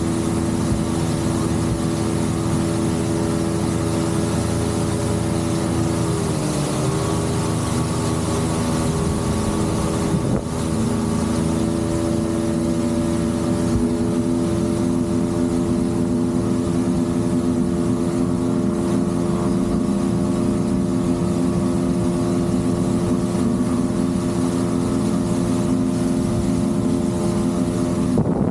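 Outboard motor on a small fishing boat running at speed, a steady engine drone over the rush of water and wind; the engine pitch dips briefly about six seconds in and comes back.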